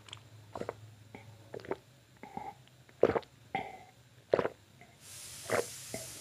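Close-up gulping of beer from a plastic mug: a run of separate swallows, the loudest about three seconds in. A steady hiss starts about five seconds in.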